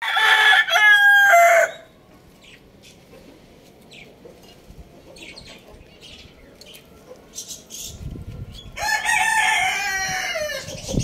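Rooster crowing: one crow at the start and a second, longer crow about nine seconds in that falls in pitch at its end, with faint clicks in the quiet between.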